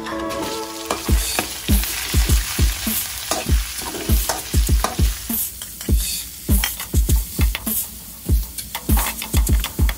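Sliced beef and garlic sizzling in hot oil in a metal wok, stir-fried with a metal spatula that scrapes and clacks against the pan several times a second.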